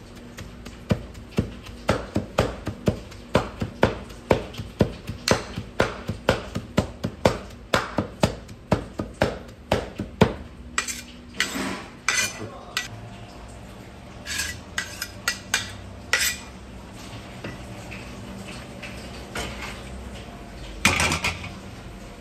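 Two steel cleavers chopping raw meat on a wooden stump block, mincing it by hand: quick rhythmic strikes, about three or four a second, for some ten seconds, then a few slower knocks and scrapes of the blades. A short clatter near the end.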